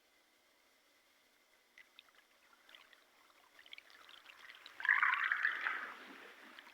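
Water trickling and splashing, with a louder gush of water about five seconds in that lasts about a second.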